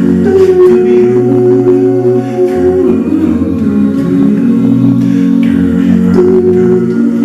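An a cappella vocal group singing close-harmony chords, held notes shifting together every second or two over a moving bass voice.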